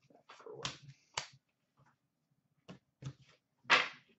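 Trading cards being handled and set down on the counter: a string of short taps, slaps and brief slides of card stock, the loudest slap a little before the end.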